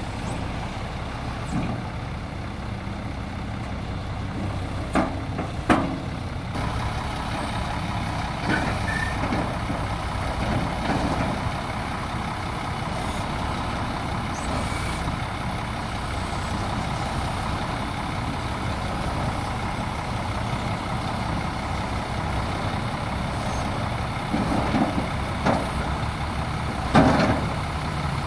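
Diesel engine of a bagasse-pushing tractor running steadily under test, with a few short sharp knocks or clanks about five seconds in and again near the end.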